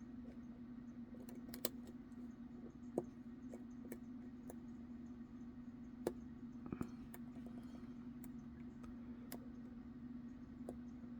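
Faint, irregular clicks of picks and a tension wrench working the pins of a Medeco original lock, about nine of them, the loudest in the first few seconds, over a steady low hum.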